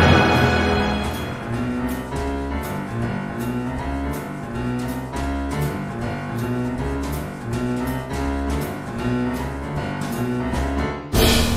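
Orchestral film-score music played by a symphony orchestra. A loud chord fades in the first second. Then comes a steady pulsing figure of short repeated notes, about three a second, over a low bass line, until a sudden loud orchestral hit near the end.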